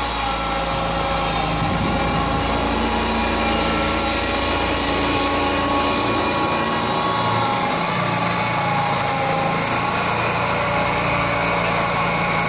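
Small Kawasaki engine of a home-made wheel loader running steadily at an even speed while the machine drives through snow.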